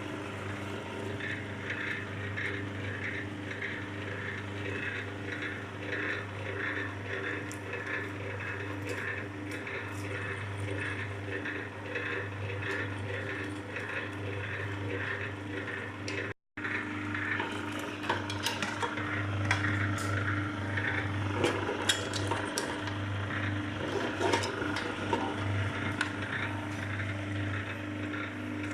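MQ-38 electric cable-stripping machine running: a steady hum from its motor and reduction gearbox, with rhythmic ticking and scraping as cable is drawn through the feed roller and knives. The sound cuts out for an instant about halfway, then the scraping and clicking grow louder and more irregular.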